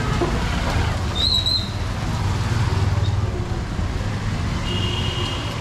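City street traffic: a steady low engine rumble from vehicles. A brief high-pitched chirp comes about a second in, and a thin high tone is held near the end.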